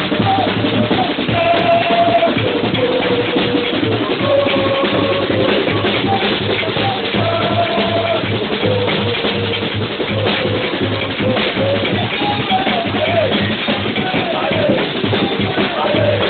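Supporters' drum band: several large double-headed drums beaten with sticks in a steady, continuous rhythm, with voices singing along over the drumming.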